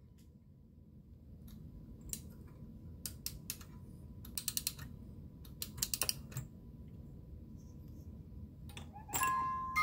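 A run of quick ratchet clicks from the wind-up music box in a metal novelty car decanter being wound. About nine seconds in, the music box starts playing a tune of plinked notes.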